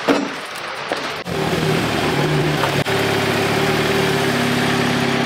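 Jeep Wrangler engine idling steadily, coming in about a second in.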